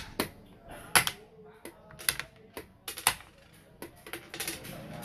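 Xiangqi pieces clacking as they are picked up and set down on a wooden board: a run of about ten sharp, irregular clicks, the loudest at the start and about a second in.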